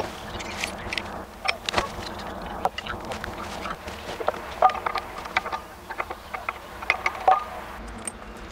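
Small metal hardware clinking and tapping: steel washers, nuts and bolts handled and fitted onto a wooden scooter's wheel mount, in scattered sharp clicks, a few of them with a short metallic ring.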